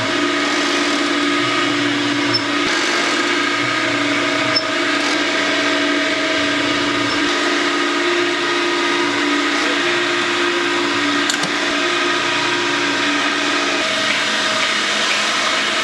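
Fish cake production machine running: a steady motor hum and whine with a few faint clicks. Part of the hum drops out near the end.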